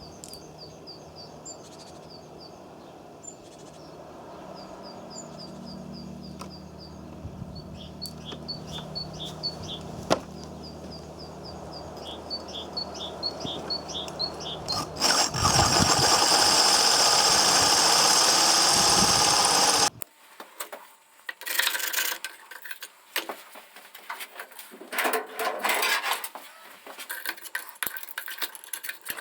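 Birds chirping in quick repeated series over a low steady hum. About fifteen seconds in, a loud even hiss starts, then cuts off suddenly about five seconds later. Irregular scraping and knocking follow.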